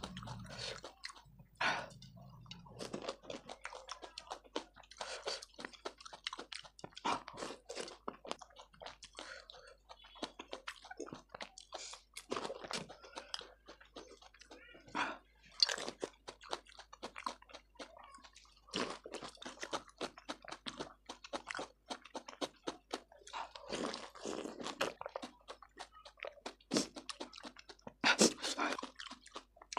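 Close-miked eating of panipuri: crisp puri shells crunching as they are bitten, then wet chewing, with many sharp irregular crackles and a few louder crunches.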